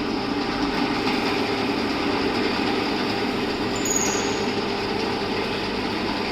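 Electric drilling machine switched on and running steadily, its motor humming, with a brief high squeak about four seconds in.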